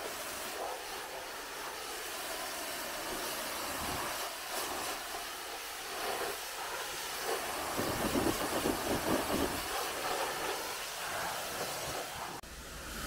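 Pressure-washer jet spraying water onto a car's body panels, rinsing off wash foam: a steady hiss of spray that gets heavier and lower for a couple of seconds past the middle.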